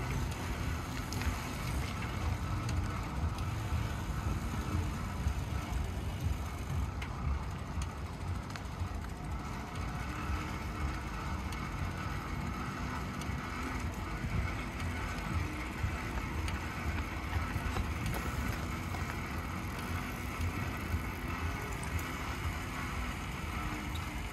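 Bicycle being ridden, its tyres rolling over pavement with a steady low rumble, while the noisy bike rattles and clicks.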